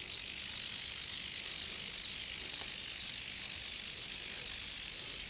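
Hexapod robot walking on its 18 Hitec HS-225BB hobby servos: a rapid, uneven ratcheting chatter of servo gears and legs.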